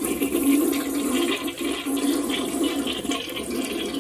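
Toilet flushing: water rushing and swirling down the bowl, easing slightly near the end.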